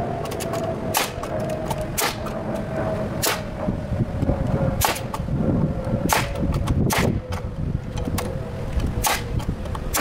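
Sharp single cracks of a nail gun driving fasteners into lumber, about seven shots at irregular intervals of one to two seconds. A faint steady tone underneath slowly drops in pitch.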